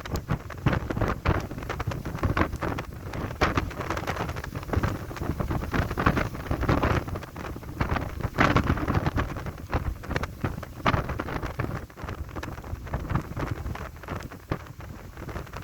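Strong, gusty wind blasting the microphone: a heavy low rumble with repeated surges that rise and fall every second or so.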